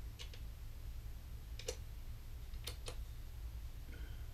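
Sharp clicks of effect-pedal switches and buttons pressed by hand on a pedalboard: a quick pair, a single click, then another quick pair, over a steady low electrical hum.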